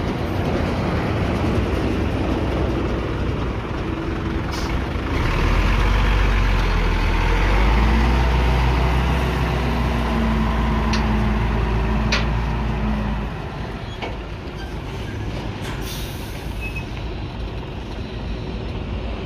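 Hino FM1J truck's diesel engine running as the truck creeps forward and back. The engine is louder from about five to thirteen seconds in, and short air-brake hisses come about four and a half seconds in and again near sixteen seconds. This is a brake test: the brakes are applied and released to check that a wheel that had been jamming now turns free.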